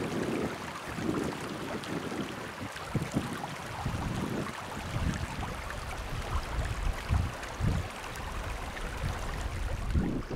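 Shallow river water running over gravel riffles, with wind buffeting the microphone in uneven low gusts that grow stronger from about four seconds in.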